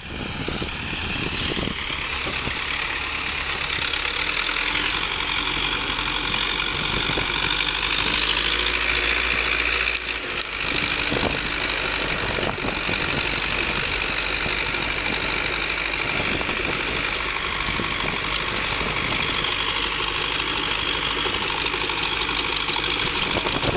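Zetor tractor's diesel engine running steadily, growing louder over the first few seconds.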